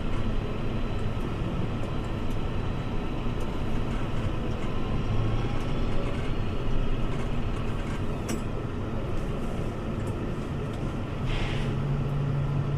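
Fendt 724 tractor engine running steadily, heard inside the cab. Near the end there is a short hiss, and a steady low engine hum grows louder.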